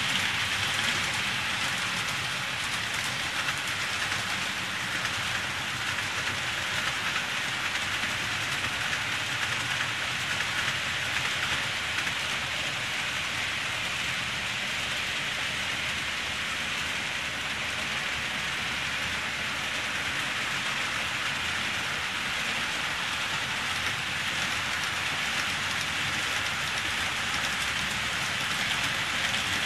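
KATO N-gauge 205 series model electric trains running on the layout's track: a steady rolling hiss of wheels on rail and motor. It is a little louder near the start and again near the end, when a train runs close.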